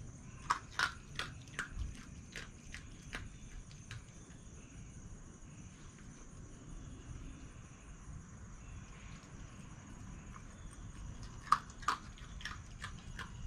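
Red fox crunching dry food: a quick run of sharp crunches for the first few seconds, a quiet pause, then another run of crunches near the end.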